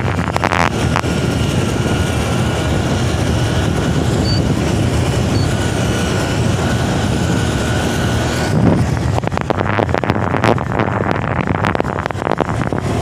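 Steady ride noise of a vehicle travelling along a paved bridge road, with rushing wind on the microphone. About eight and a half seconds in, the sound turns gusty and uneven.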